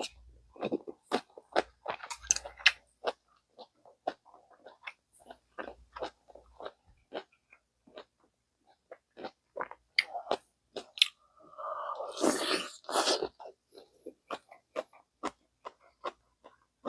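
Close-miked chewing and wet mouth sounds of someone eating pork-bone stew: many short, irregular clicks and bites, with a denser, noisier stretch of about two seconds after the middle.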